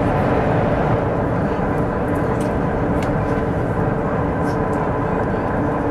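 Steady running noise inside the cabin of a KTX-Sancheon high-speed train travelling at about 300 km/h, with a faint steady hum through it.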